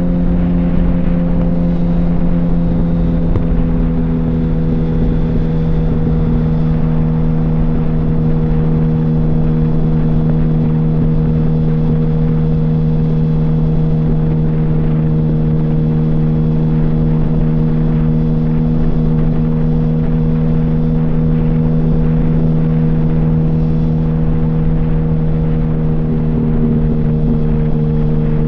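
Yamaha R1 (RN12) inline-four engine running through an open exhaust with the baffles removed, holding steady revs with a constant note after a slight drop in pitch in the first few seconds.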